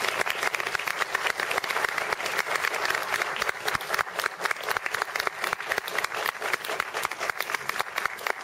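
Audience applauding: a dense, steady round of clapping from a hall full of people.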